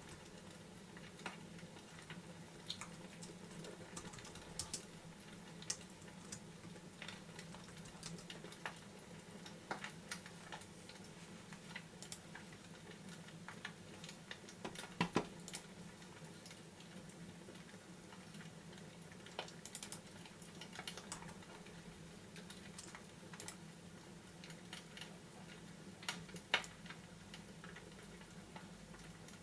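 Fireplace crackling softly: scattered, irregular clicks and pops over a steady low hum, with a couple of louder pops near the middle and toward the end.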